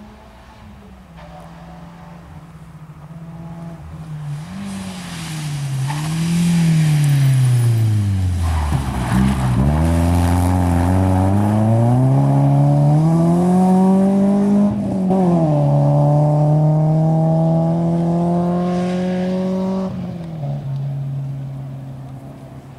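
Rally car approaching and passing: the engine revs fall away as it slows, then climb hard as it accelerates, with one sharp upshift and a second climb before it fades as it leaves.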